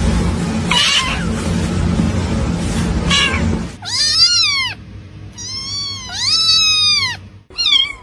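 A cat meowing: about four drawn-out meows in the second half, each rising then falling in pitch, the last one short. Before them is a loud, steady rushing noise with a low hum.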